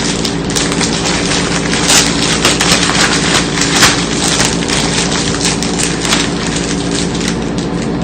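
Plastic snack-cake wrapper crinkling and crackling as it is opened, a dense run of sharp clicks close to the microphone. A steady low hum sits underneath.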